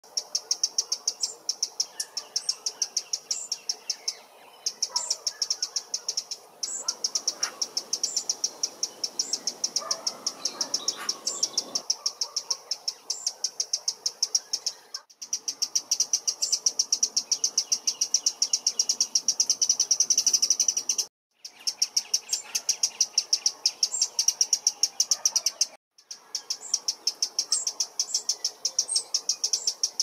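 Eurasian wren giving its alarm call: a long, fast, steady run of hard, dry 'teck' ticks, several a second, broken by a few short pauses. The call warns of a possible predator near the nest, such as a magpie or crow.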